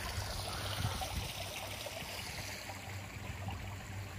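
Water trickling and splashing steadily as a small pond waterfall spills over a stone lip into the pool below.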